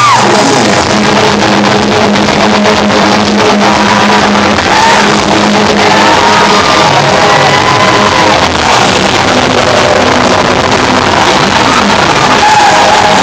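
Heavy metal band playing live at full volume, recorded very loud and distorted on a phone's microphone.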